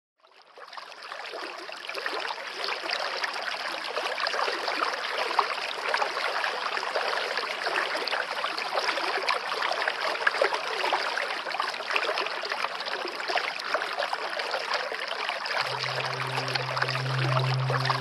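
Small waterfall splashing down rocks into a stream: a steady rush of falling water that fades in over the first second or two. Near the end a low steady hum joins it.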